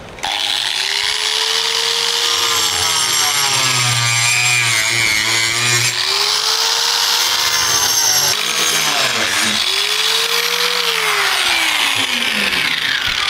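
Angle grinder with a cut-off disc cutting through the top of a blue plastic 200 litre drum, the motor's pitch rising and falling repeatedly as the load on the disc changes. Near the end the motor winds down.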